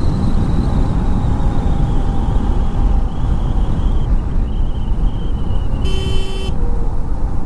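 Motorcycle on the move: steady wind rush and engine and road noise. About six seconds in, a vehicle horn sounds once, briefly.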